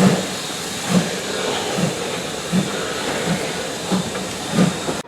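Steam locomotive pulling away, its exhaust beats quickening from about one a second to one and a half a second over a steady hiss of steam.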